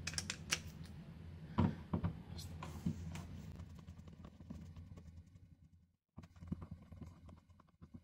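Small clicks and scrapes of a screwdriver backing out the mounting screws of a single-pole light switch.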